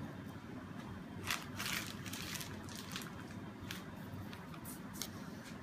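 Piping bag crinkling in short crackly rustles, several times, as ganache is squeezed out onto macaron shells, over a steady low hum.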